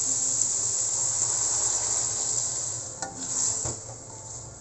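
Ground meat frying in a stainless-steel wok hisses as water is poured in, and the sizzle fades away over a few seconds. About three seconds in, a spatula stirs the pan and knocks against it a few times.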